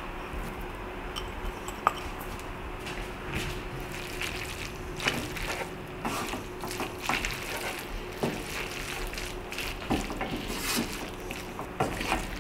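Wooden spoon stirring and tossing spaghetti in a skillet on the stove: soft scrapes and scattered light knocks against the pan, over a faint steady hum.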